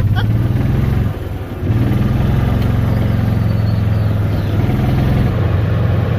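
Golf cart engine running under way, easing off briefly about a second in and then running steadily again.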